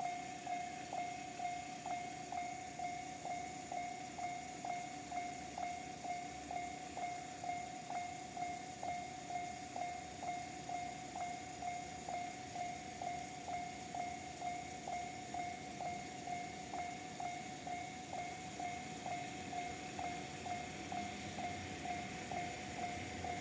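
Japanese railway level-crossing warning signal of the JR standard electronic type, chiming one tone over and over at about two strikes a second.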